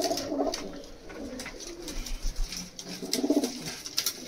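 Domestic pigeons cooing, a few low coos in bouts, with scattered light clicks among them.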